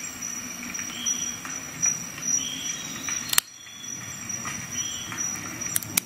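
A Leatherman ARC multi-tool being worked in the hands, its knife blade pivoting and snapping. There are metal clicks and short faint squeaks over light rubbing, with the sharpest click about three and a half seconds in and another near the end.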